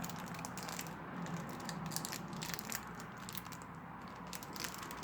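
Trading cards and pack wrappers being handled: scattered light clicks and rustles over a faint steady hum.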